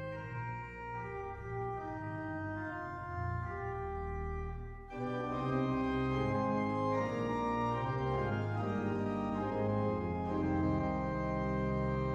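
Organ playing slow, sustained chords; about five seconds in it becomes louder and fuller.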